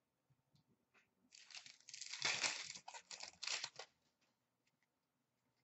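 Wrapper of an Upper Deck hockey card pack being torn open and crinkled, a little over two seconds of tearing and rustling that starts about a second in.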